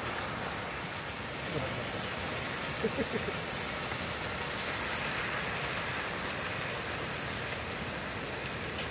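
Chicken neck pieces simmering and sizzling in sauce in a cast-iron skillet over a gas camp stove, a steady hiss of bubbling liquid.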